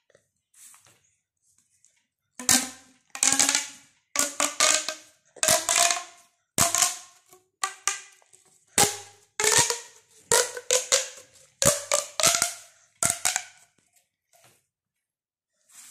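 A plastic pop tube, a ribbed corrugated toy tube, stretched and squeezed by hand, its ribs snapping open and shut in about a dozen quick runs of pops. Each run carries a slight ringing tone, and the runs come between about two and thirteen seconds in.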